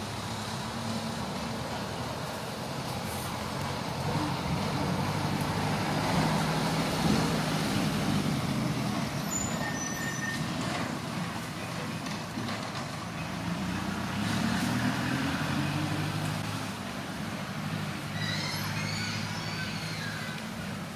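A motor vehicle engine running, swelling and shifting in pitch twice, with a few high chirps near the end.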